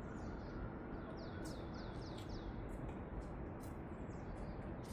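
A small bird singing runs of short, quickly falling high chirps, repeated three or four at a time, over steady background noise.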